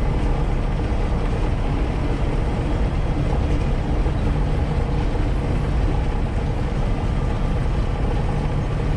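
Semi truck running down the road, heard from inside the cab: a steady engine drone and road rumble that holds even throughout.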